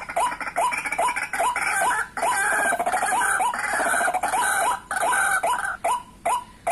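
White-breasted waterhen calling: a run of short rising croaking notes, about two to three a second, that thicken into a harsher rapid chatter through the middle.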